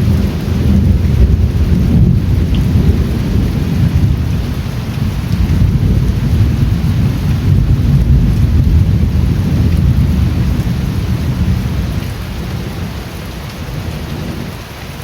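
Steady rain with a deep, rolling rumble of thunder, which eases off near the end.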